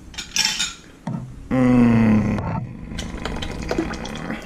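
A man's voice holding one drawn-out note for about a second, in the middle, between short scrapes and clicks that fit utensils against a pot.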